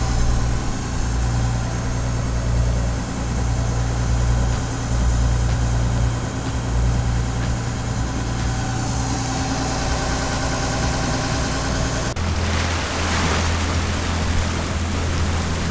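A Tayana 55 sailboat's inboard diesel engine running steadily under way, a low even hum. About twelve seconds in, the sound changes abruptly to a slightly different engine note with more rushing water and wind noise.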